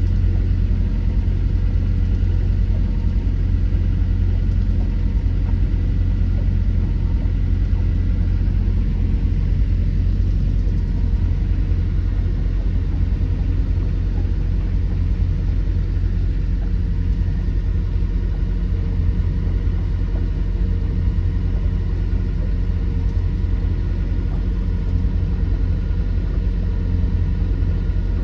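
A motor cruiser's inboard engine running steadily underway, a constant low drone with faint steady tones above it.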